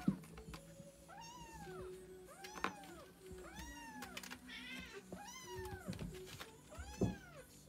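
Siamese kitten meowing again and again, high cries that rise and fall, about one a second. A few sharp knocks come in between, the loudest right at the start and near the end.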